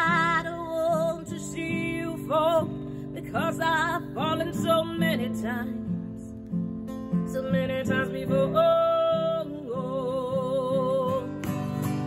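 A woman singing, holding notes that waver in pitch, over a strummed acoustic guitar.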